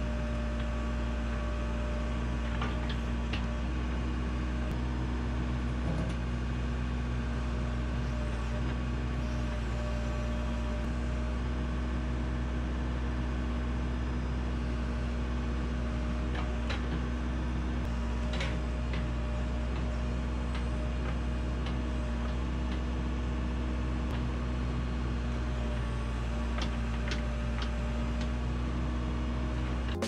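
Backhoe engine running at a steady, unchanging speed, with a few short metallic clinks and knocks over it.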